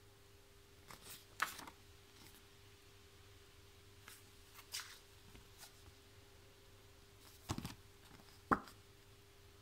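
Paper leaflets rustling and flapping as they are handled and shuffled, in a few short bursts: about a second in, near the middle, and twice near the end, the last a sharp slap of paper. A faint steady hum sits underneath.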